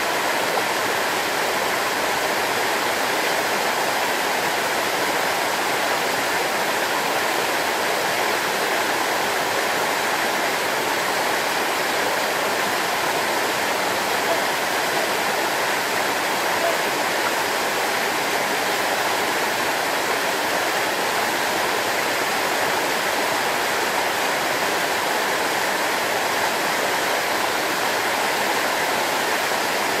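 Waterfall pouring down a rock face and splashing onto stones, a steady rush of falling water.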